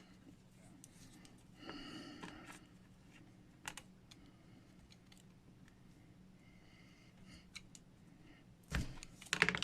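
Quiet handling of a vintage plastic action figure's leg as it is being re-banded, with faint rubbing, a single light click, and a short run of plastic clicks and knocks near the end.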